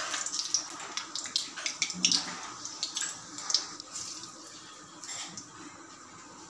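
Panch phoron (five-spice seeds) sizzling and spluttering in hot oil in a kadai, the seeds popping thickly at first and dying down to a soft sizzle after about four seconds.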